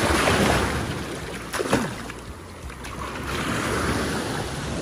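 Shallow surf washing in and out around the feet, with wind on the microphone; the wash is strongest at the start and swells again near the end. Two sharp taps close together about a second and a half in.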